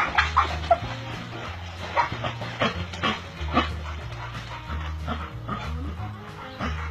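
Dogs barking and yipping in many short, quick bursts, thickest in the first second, over background music with a bass line.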